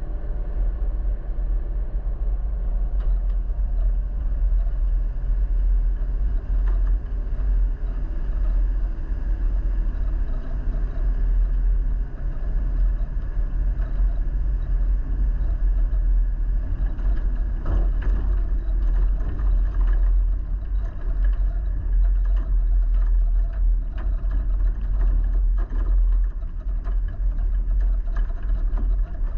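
A road vehicle driving: steady engine and road rumble, with small rattles and knocks.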